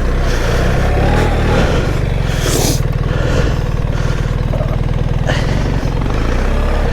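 BMW R 1300 GS Adventure's boxer-twin engine running steadily at low revs.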